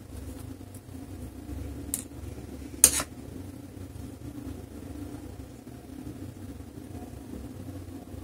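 Small screwdriver and screws clacking on a hard desktop as the screwdriver is put down: a light click, then about a second later a louder, sharp clack, over a steady low hum.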